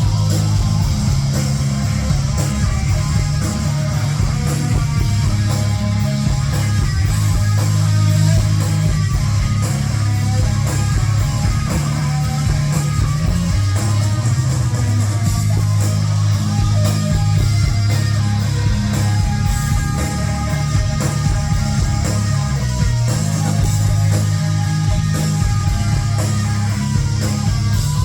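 Live rock band playing an instrumental passage: heavily distorted electric guitars over bass and drums, loud and continuous.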